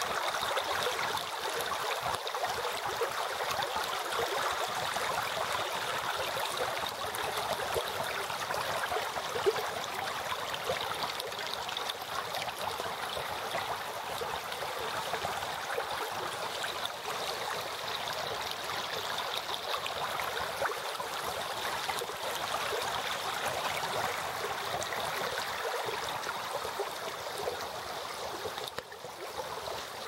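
Spring snowmelt stream running fast and shallow over flooded forest ground, a steady babbling and splashing of water. It dips briefly near the end.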